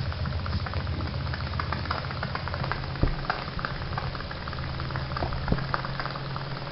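Small live steam engine running on steam from a Jensen boiler: a fast, even run of light clicking beats over a steady steam hiss, with two sharper knocks about three and five and a half seconds in.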